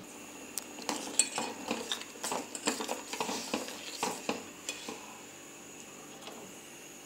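Spoon stirring in a steel cooking pan, clinking and scraping against the sides in a quick irregular run of knocks that stops about five seconds in, leaving a faint steady hiss.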